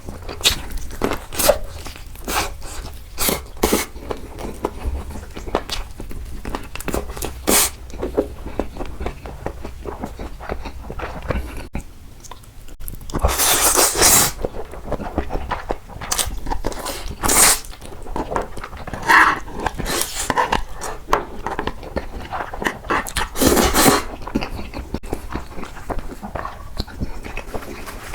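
Close-miked eating sounds: wet chewing and mouth clicks in quick succession, with several longer, louder bursts of slurping or biting.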